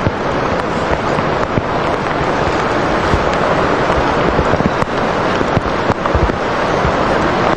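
Steady rush of wind and surf, with wind buffeting the microphone in many short low thumps and crackles.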